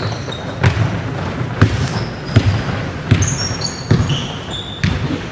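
Basketball dribbled on a wooden sports-hall floor, about six bounces a little under a second apart. Sneakers squeak on the floor in the second half.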